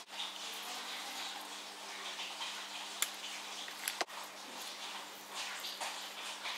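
Masking tape being pulled off the roll and wrapped around a small steel part, with soft crackling and a couple of sharp clicks, over a steady low hum.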